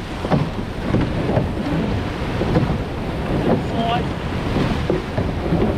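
Wind buffeting the microphone over water rushing and splashing along a rowed surf boat's hull, a steady noisy rush.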